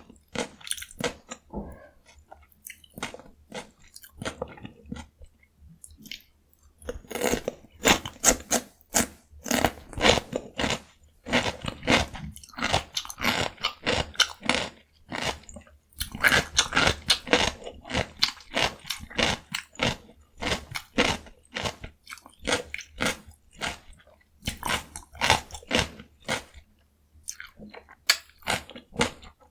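Close-miked crunchy chewing of raw cucumber dipped in gochujang: rapid wet crunches and bites, in bursts with short pauses between mouthfuls.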